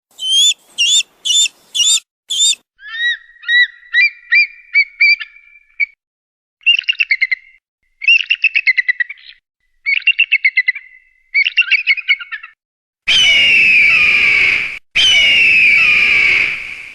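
A sequence of bird calls: about five quick falling whistles, then a series of short chirps and several trilled phrases, and near the end two long harsh screeches that slide down in pitch.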